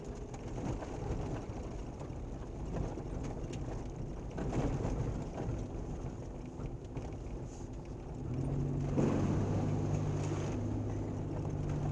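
Mitsubishi Pajero driving along a gravel track, heard from inside the cab: a steady rumble of tyres and suspension with the engine underneath. About nine seconds in it splashes through a puddle, spraying muddy water over the windscreen, and the engine note comes up louder and steadier.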